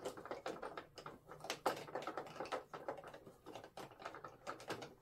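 Irregular light clicks and taps of hands and a small screwdriver working a wing strut and its screw on a model airplane's fuselage.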